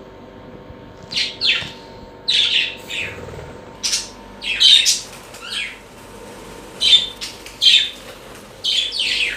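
Pet birds giving a run of short, harsh calls, about a dozen of them, starting about a second in.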